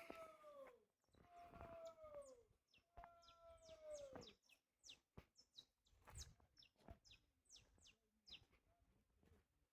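Faint birdsong: three drawn-out calls falling in pitch in the first few seconds, followed by a long series of short, quick high chirps, each sweeping downward.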